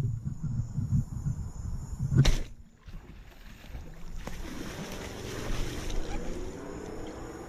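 Low rumbling thumps of handling and movement along a grassy bank, with a sharp knock about two seconds in, over the steady high chirping of night insects.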